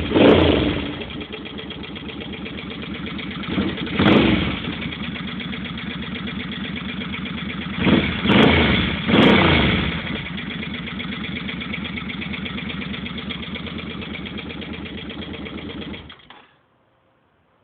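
2005 Suzuki Boulevard C50's V-twin engine idling with a tapping noise that the new owner cannot explain. It is blipped briefly about four seconds in and twice around eight to nine seconds, then shut off about a second before the end.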